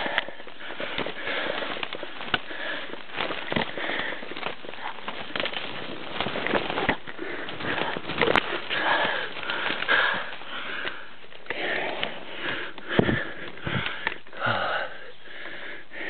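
A person breathing hard through the nose while forcing a way through dense scrub, with rustling foliage and frequent cracks and snaps of twigs and branches.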